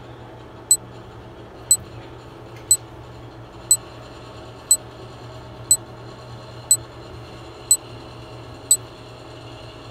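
Stopwatch countdown sound effect: a sharp clock tick once a second, nine ticks in all, over faint steady room hum.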